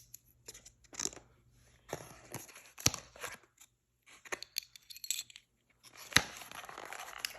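Packaging being handled and torn open: scattered rustles and scrapes, a short tearing sound, and two sharp knocks, about 3 s and 6 s in.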